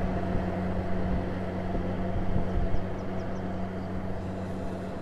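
Rice combine harvester's engine running steadily while cutting the standing crop, an even low hum with no change in speed.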